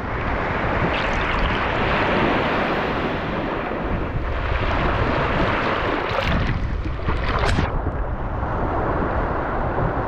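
Small ocean waves breaking and washing up a sandy beach at the waterline, a steady surging hiss of surf. Water washes right over the microphone about six seconds in, with a couple of sharper splashes.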